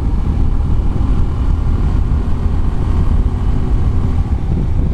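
Bajaj Pulsar 125 BS6's single-cylinder engine and exhaust running steadily while the bike cruises in fifth gear, with heavy wind rumbling on the microphone.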